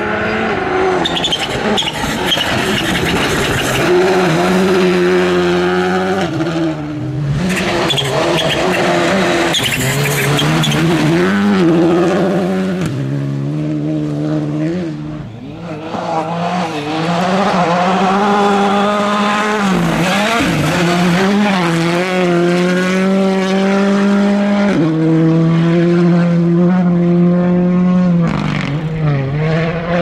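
Rally2 cars' turbocharged 1.6-litre four-cylinder engines at full throttle on a gravel stage, one car after another, revs climbing and dropping sharply with each quick gear change, with gravel hissing and crunching under the tyres.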